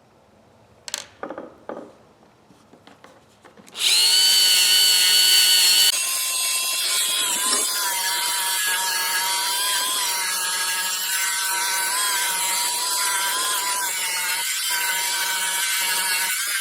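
A few small handling clicks, then a small rotary tool fitted with a plastic fiber abrasive wheel starts up about four seconds in and runs with a steady high whine, smoothing and cleaning steel ratchet parts; its level drops slightly about two seconds after starting.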